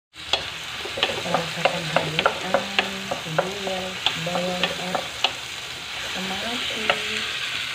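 Vegetables sizzling as they fry in a hot pan, stirred with a wooden spatula that clicks and scrapes sharply against the pan many times.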